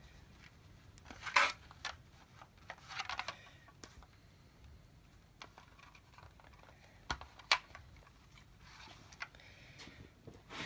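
Stiff white plastic belt plate and canvas belt being handled and laid in place on a cloth-covered table: scattered light rustles and a few sharp plastic clicks and taps, the loudest about a second and a half in.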